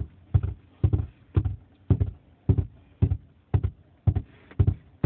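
Steady rhythm of dull thumps, about two a second, many of them in close pairs.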